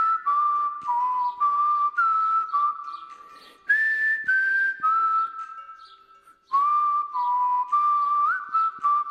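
Outro music: a whistled melody of stepped, held notes over light clicking percussion, in short phrases with two brief breaks.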